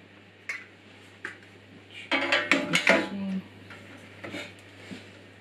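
Metal parts of a benchtop bandsaw clattering and ringing as they are handled and fitted at the saw table: a few light clicks, then a loud burst of rattling about two seconds in that lasts about a second.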